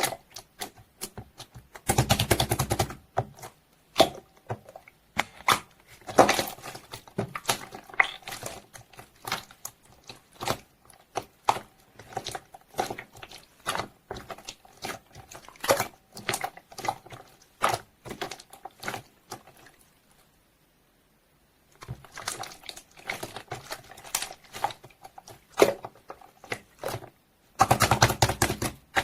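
Slime being squished and pressed by hand, giving a stream of sticky clicks and pops. There are two runs of rapid crackling, one about two seconds in and one near the end, and a short pause about two-thirds of the way through.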